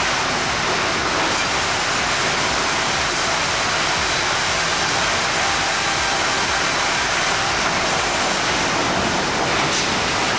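Band sawmill cutting through a log: a steady, even rushing noise of the blade in the wood.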